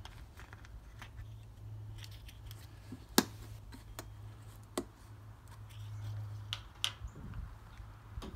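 Plastic cap of a gallon oil jug being twisted off and handled, giving several sharp plastic clicks, the loudest about three seconds in, over a steady low hum.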